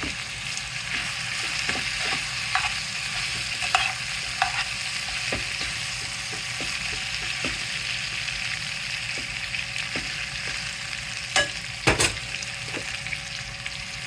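Sliced meat frying in a pan with a steady sizzle, while a utensil stirs it and clicks against the pan. Near the end come two louder knocks on the pan.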